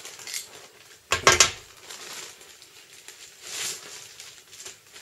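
Packaging being handled and opened: noisy rustling and light knocks, loudest with a thump just over a second in and again around three and a half seconds.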